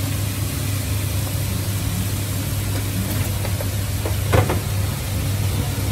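Pad Thai frying on a large flat pan: a faint sizzle over a steady low hum, with one short knock about four seconds in.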